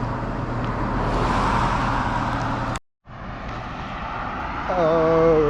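Road traffic: a vehicle goes by, its rushing noise swelling and fading. Near the end a loud, steady pitched tone sounds for about a second.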